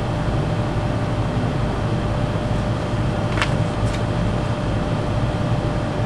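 HVAC air-handler blower running steadily, pulling air through a month-old dirty pleated filter: an even low hum with a faint steady tone above it. A single sharp click about three and a half seconds in.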